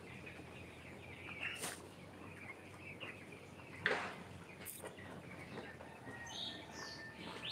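A large flock of young broiler chickens peeping and chirping continuously, with a couple of louder sharp sounds about a second and a half in and near four seconds.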